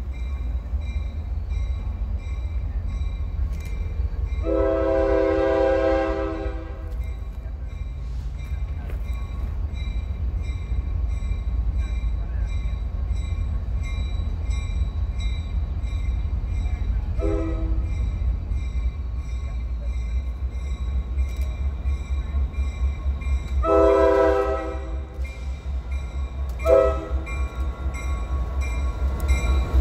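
Air horn of an NS EMD GP60 diesel locomotive, leading an approaching freight train, sounding a multi-note chord in separate blasts. There is a long blast about four seconds in, a short one midway, and a longer then a short blast near the end, all over a steady low rumble.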